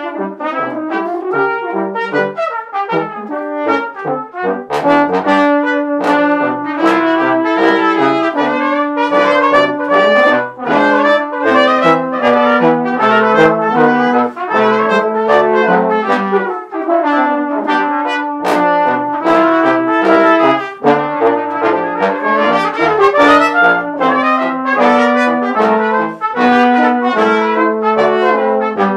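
A brass quintet of trumpets, French horn and trombones playing together, with many short notes over a steady low trombone line.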